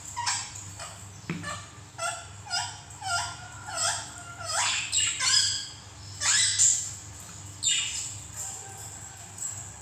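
Birds chirping repeatedly, short calls sweeping sharply in pitch about once or twice a second, over a steady low hum.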